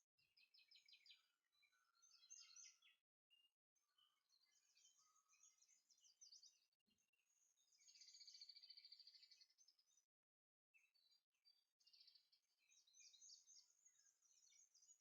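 Faint songbird chirps and fast trills, one longer trill about eight seconds in, with the sound cutting out completely for brief moments several times.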